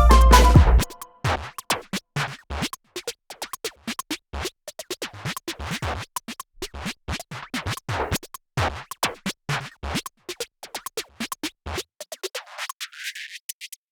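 Background electronic music. The full beat with bass cuts out about a second in, leaving a breakdown of rapid scratch-like clicks and stutters.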